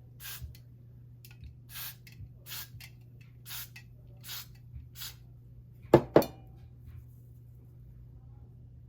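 Aerosol hair freeze spray (Got2b Blasting Freeze) spritzed in a quick string of short hissing bursts, then two sharp knocks about six seconds in.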